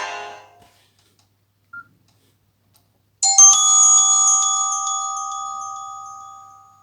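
Nokia C5-00 ringtones: the last notes of one melody die away, a short beep sounds about two seconds in, and a bell-like chime tone starts about three seconds in with a quick run of notes, then rings on as two held pitches that slowly fade.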